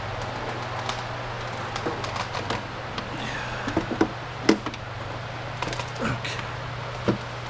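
Irregular clicks and knocks of plastic parts and tools being handled while the drive motor is taken out of a Polaris 9550 robotic pool cleaner, with one sharper knock about halfway through, over a steady low hum.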